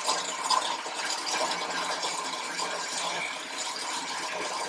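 Countertop blender running steadily at speed, churning a vanilla milkshake with broken Crunch bar pieces: a really loud mechanical whir.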